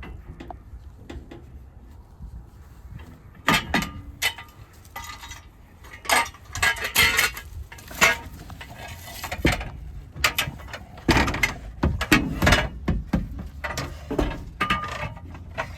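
Metal brackets being handled, adjusted and test-fitted: irregular clanks, knocks and rattles, some in quick clusters, with pauses between.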